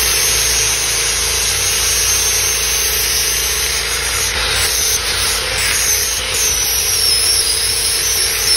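Angle grinder running under load, grinding down a fresh weld on a steel motorcycle frame hoop: a steady, loud grinding hiss over a constant motor whine.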